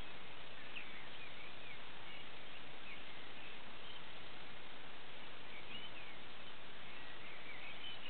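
Dawn chorus of songbirds: scattered short, twittering whistled notes from several birds, faint over a steady hiss.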